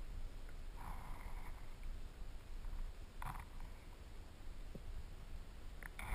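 Low, muffled rumble of stream water picked up by a camera submerged on the riverbed. A short rushing sound comes about a second in, a brief one just after three seconds, and a few faint clicks near the end.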